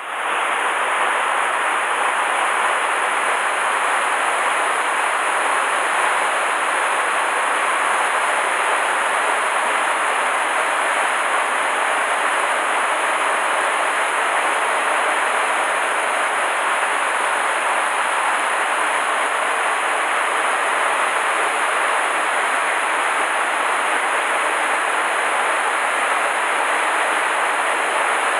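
Mountain stream rushing over rocks, a steady, even rush of water.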